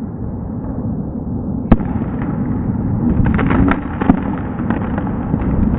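Firework going off at ground level, with a steady rushing hiss of sparks, one sharp bang about two seconds in, then a fast run of crackles and pops from about three seconds on, echoing inside a cooling tower.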